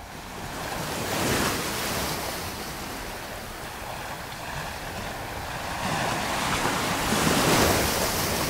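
Sea waves rushing, with wind, fading in from silence and swelling twice.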